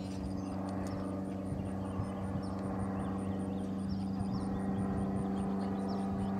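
A steady, low engine drone with no change in pitch, with a few faint, short high chirps over it.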